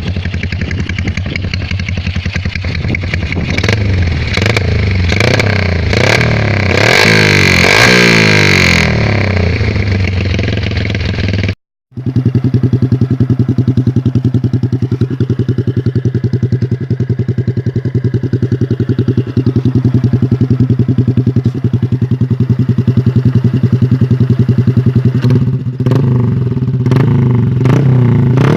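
Small motorcycles with loud aftermarket exhausts running. The first is revved several times, its pitch rising and falling, then after a short break a second runs steadily with a fast, even exhaust beat and a few quick blips near the end.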